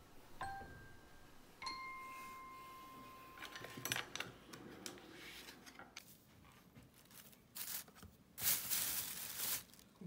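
A held electronic chime note from the background music rings for about two seconds, then a thin plastic shopping bag crinkles and rustles as mandarins are handled in it, with the loudest rustle near the end.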